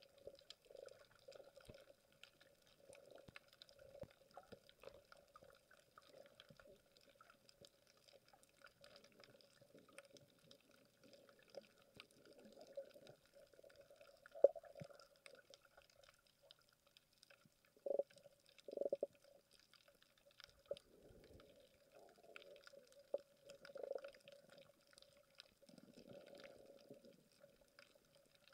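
Faint muffled underwater sound as picked up through an action camera's waterproof housing: a steady low hum with scattered small clicks, and a few short gurgling bursts, the loudest two close together about two-thirds of the way through.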